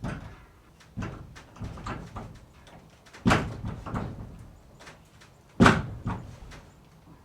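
Barn door banging and knocking, a string of separate thuds and bangs with short decays. The two loudest come about three and five and a half seconds in.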